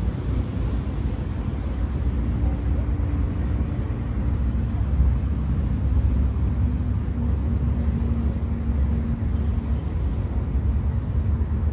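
Steady low rumble of outdoor background noise, with a faint droning tone through the middle.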